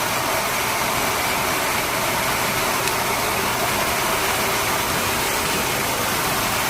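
Blow dryer running steadily, a constant whooshing rush of air.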